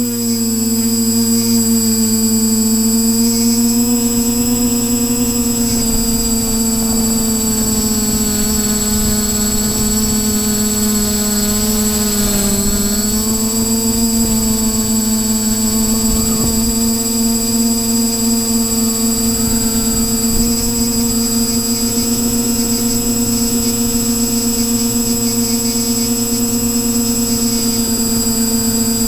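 Quadcopter's electric motors and propellers running steadily in flight, a loud multi-pitched drone with a thin high whine above it, the pitch dipping briefly and recovering about twelve seconds in.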